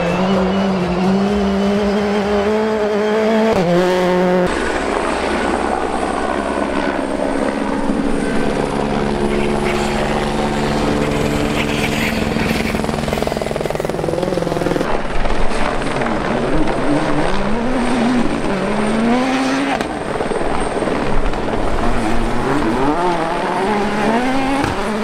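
Rally cars flat out on gravel, one after another: turbocharged engines revving high, dropping and climbing again through gear changes, with loose gravel spraying from the tyres. The sound cuts abruptly to a new car about four seconds in, again around fifteen seconds and near twenty seconds.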